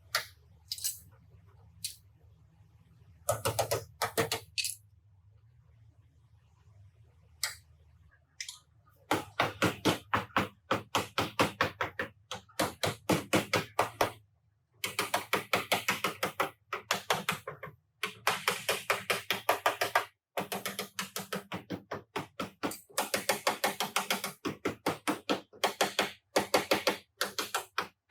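Hammer tapping on car body sheet metal: a few scattered single taps, then about nine seconds in, long runs of quick sharp taps, about four or five a second, with short pauses between runs.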